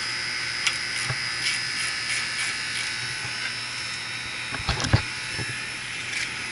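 Carrier condenser running steadily during a refrigerant pumpdown, with the liquid line closed and the compressor drawing the charge into the condenser: a steady mechanical hum. A few light knocks come near five seconds in.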